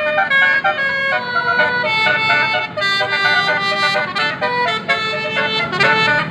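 A bus's telolet basuri musical air horn playing a quick melody of stepped notes, some sounded together as chords, over a low rumble.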